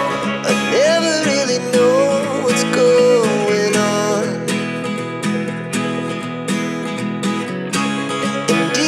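Background music: strummed acoustic guitar chords with a held, bending melody line over them in the first half.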